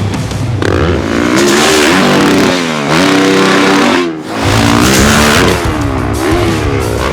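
Yamaha YZ450F single-cylinder four-stroke dirt bike engine revving, its pitch rising and falling again and again under throttle, with a short lull about four seconds in where the throttle is chopped.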